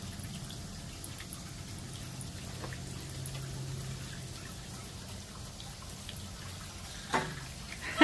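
Toy sink's faucet running a thin trickle of water into its plastic basin, dripping and splashing steadily over a low steady hum. A sharp knock about seven seconds in.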